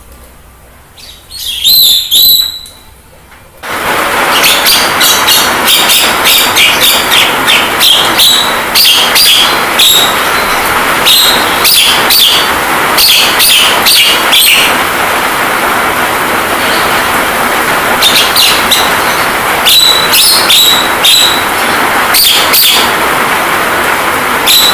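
Javan myna calls, short sharp chirps in clusters, over a steady hiss of rain sound that switches on abruptly about four seconds in and plays on throughout.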